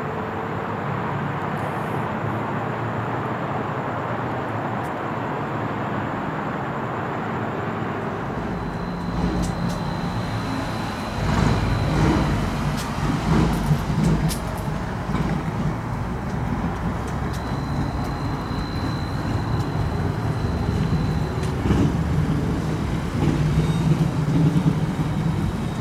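Traffic at night: a steady, distant traffic hum, then from about eight seconds in, nearer cars running on a residential street, with a low rumble, a few knocks and a thin high steady tone that comes and goes twice.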